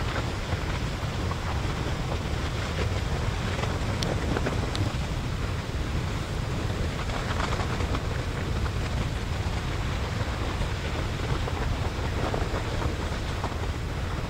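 River of molten lava flowing: a steady low rumble and hiss with a few faint cracks, mixed with wind buffeting the microphone.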